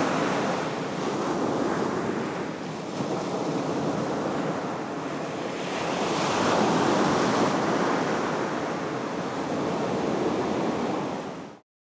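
Ocean surf breaking on a sandy beach, a steady rush that swells and ebbs as each wave breaks and washes up the sand. It cuts off suddenly near the end.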